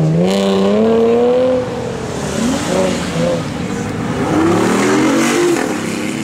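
Supercar engine accelerating, its pitch rising for about a second and a half before it drops away. A second, quieter acceleration rises from about four seconds in.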